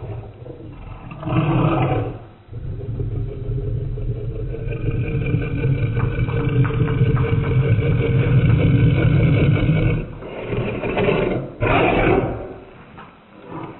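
A golden retriever growling with its head in its food bowl, guarding it from another dog. The growl is slowed down and deep, one long sustained rumble, with louder, harsher snarling bursts about a second in and again near the end.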